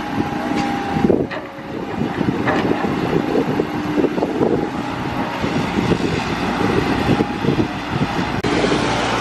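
An engine running steadily, with an abrupt change in the sound near the end.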